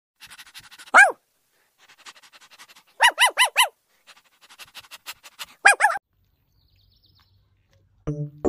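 A small dog yelping and yipping over runs of light rapid tapping: one falling yelp about a second in, four quick yips around three seconds, and another falling yelp near six seconds.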